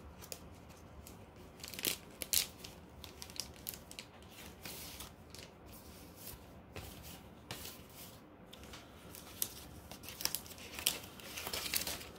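Packaging rustling and crinkling as items are pulled out of it by hand, in uneven crackles with louder rustles about two seconds in and again near the end.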